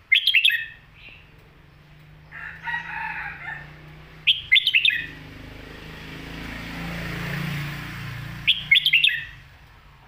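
Caged red-whiskered bulbul singing three short, quick song phrases of several rapid notes each, about four seconds apart.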